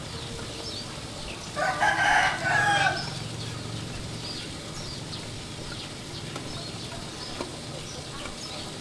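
A rooster crowing once, starting about one and a half seconds in and lasting about a second and a half, the loudest sound here, over faint bird chirps.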